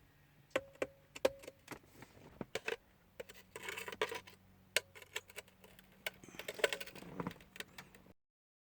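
Small Phillips screwdriver working screws out of the plastic HVAC control unit: a scatter of light clicks and ticks, with short rasping stretches twice as the screws are turned. The sound cuts off abruptly just after eight seconds.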